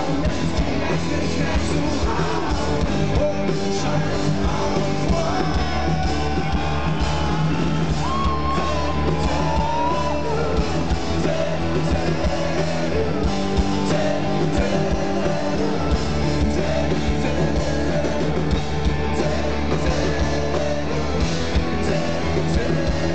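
Live rock band playing loudly, with guitars, bass and drums and a voice singing or shouting over them, recorded from the audience.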